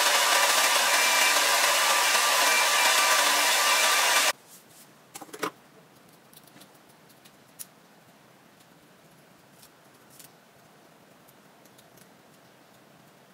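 A hand-held hair dryer blows steadily to dry a coat of Got2b glue on a wig cap, then switches off suddenly about four seconds in. After that come a few faint snips of small scissors trimming the cap.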